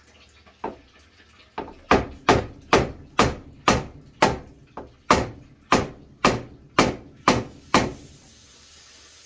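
Steel pliers used as a hammer, striking a knockout on a steel breaker-box enclosure to punch it out: a single knock, then a steady run of about fourteen sharp metallic strikes, roughly two a second, each ringing briefly.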